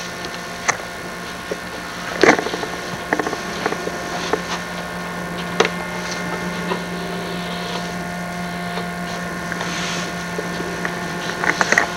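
A machine's motor running steadily with a low hum. A few sharp knocks or clatters sound over it, the loudest about two seconds in and a small cluster near the end.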